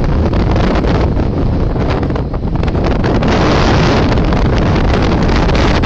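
Loud wind buffeting the microphone on the deck of a tall ship under sail, over a steady rush of wind and sea.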